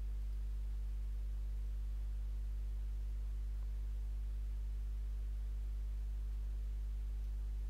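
Steady low electrical hum, a constant buzz with even overtones, and nothing else.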